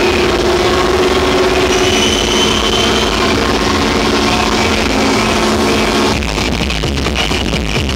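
Loud electronic dance music from a DJ set over a big sound system. A held synth chord sounds for the first six seconds or so, then the beat comes in with regular thumps.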